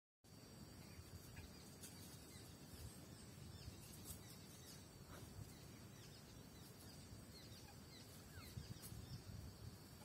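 Faint, scattered short bird chirps, each a quick falling note, over a low background rumble.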